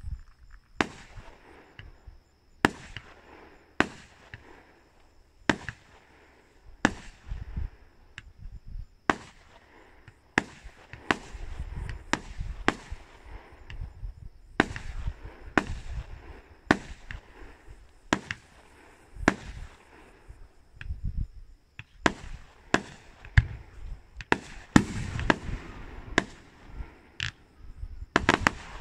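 Aerial fireworks shells bursting in a steady barrage: sharp bangs about once a second, each followed by a low rumble.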